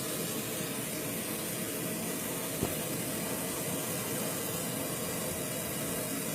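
Propane torch burning with a steady hiss while copper pipe fittings are soldered, with one short click about two and a half seconds in.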